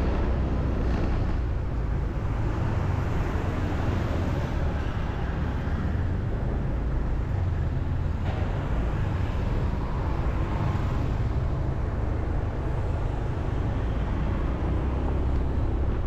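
Steady road and wind noise from a vehicle driving through city traffic, a constant low rumble with no distinct events.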